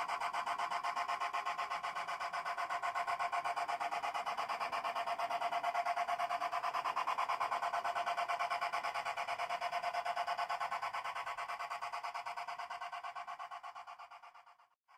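G scale model steam locomotive running along its track with a fast, even, rasping beat that fades out near the end.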